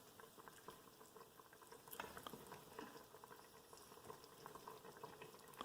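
Faint bubbling of chicken-and-noodle broth boiling in an Instant Pot on the sauté setting, with small irregular pops.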